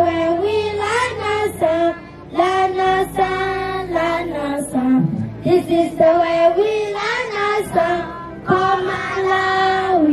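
A girl singing solo into a handheld microphone, a melody of long held notes broken by short pauses.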